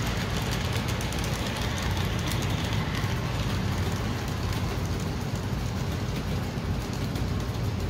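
O gauge model freight cars rolling past on the track: a steady low rumble of metal wheels on the rails with many small clicks, more of them in the first half.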